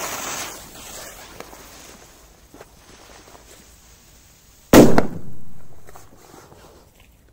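The thick fuse of an FP3 firecracker hisses and throws sparks. About four and a half seconds later there is a single loud, sharp bang, a powerful blast with a rumbling echo that fades over a second or two.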